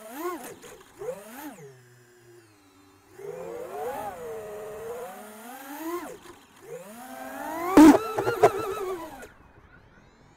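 Brushless motors and propellers of a 6S 5-inch FPV quadcopter whining, the pitch rising and falling with the throttle. Just before eight seconds in a sharp crack as a propeller breaks apart in flight; the motors then run rough for a second before going quiet.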